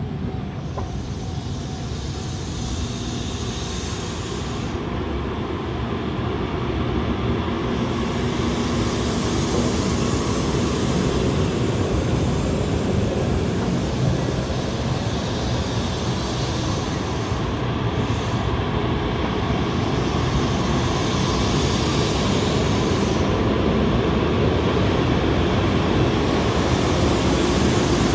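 JR Central N700S Shinkansen trainset being shunted past, a continuous rumble of wheels on rail that grows louder over the first several seconds. A high hiss comes and goes a few times.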